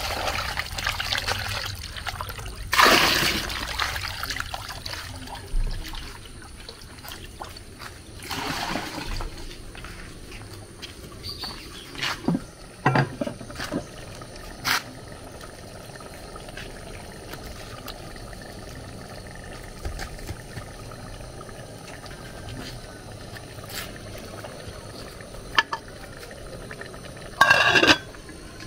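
Water running from an outdoor tap and splashing into a glass bowl as something is rinsed by hand. Later come a few short knocks, and near the end a brief loud clatter as the aluminium pot's lid is handled.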